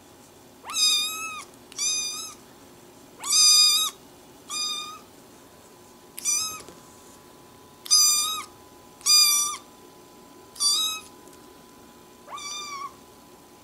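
Tiny kitten meowing over and over: nine short, loud, high-pitched meows, each under a second, about one every one and a half seconds.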